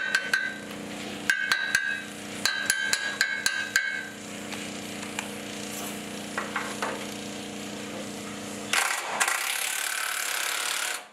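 Work with a cordless drill/driver on the bolts of a steel boat-trailer frame. A dozen or so sharp metallic clanks, each with a short ringing tone, come in the first four seconds. A steady low hum underneath stops near the end, and a rushing noise follows for the last two seconds.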